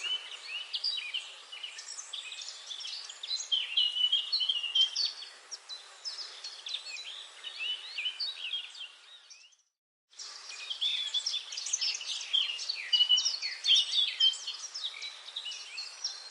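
Dense chorus of many small songbirds chirping and singing at once over a faint forest hiss. Near ten seconds in the sound fades and cuts out for about half a second, then comes back abruptly.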